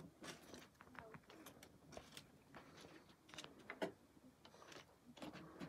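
Faint, scattered clicks and light knocks of dry sticks being shifted and pushed into the glowing embers of a mud cooking stove.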